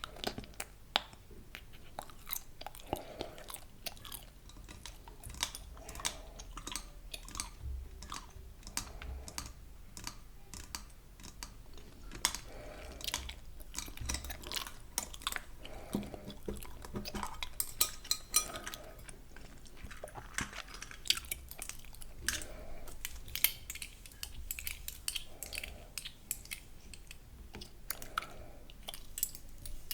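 Close-miked gum chewing: irregular wet clicks and smacks of the mouth.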